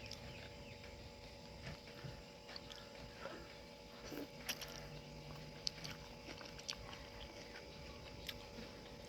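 Faint eating sounds: chewing and small wet mouth clicks, scattered and irregular, from someone eating noodle soup.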